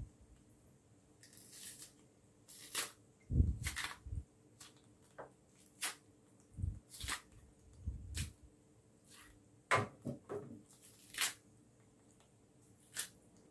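Kitchen knife slitting and scraping the skin of a green plantain, with the tough peel prised up and pulled away in short, separate scrapes and snaps. A few low thumps of handling come in between.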